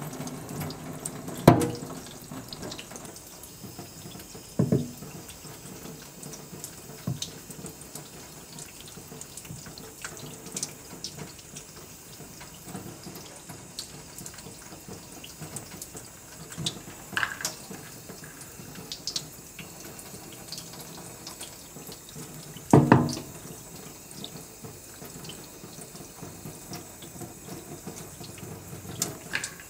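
A thin stream of tap water runs steadily from a faucet onto a wooden cutting board in a stainless-steel sink. A few short, sharp knocks break in, the loudest about two-thirds of the way through.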